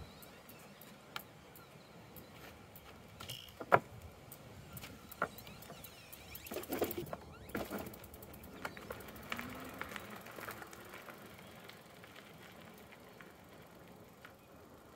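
Juiced HyperScrambler 2 e-bike rattling and clicking over rough, muddy trail. A sharp knock comes about four seconds in, and a cluster of knocks and rattles follows around seven seconds.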